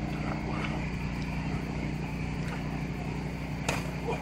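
Steady low motor hum, like an idling engine, with one sharp smack of a boxing glove landing about three-quarters of the way through.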